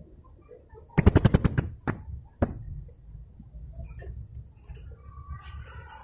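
Young blue-crowned hanging parrot (serindit) calling. About a second in it gives a loud, rapid burst of sharp high notes, the rattling 'tembakan' volley keepers train for, followed by two single sharp notes. Softer twittering starts near the end.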